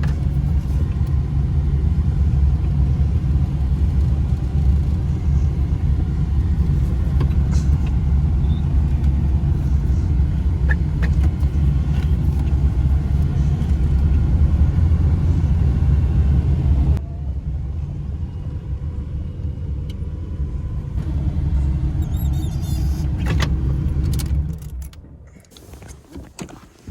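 A motor vehicle running with a steady low rumble, which drops in level about seventeen seconds in and dies away a couple of seconds before the end.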